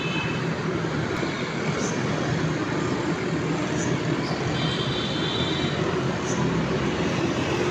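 Engine of a water-borehole drilling rig running steadily while drilling, a constant low mechanical hum.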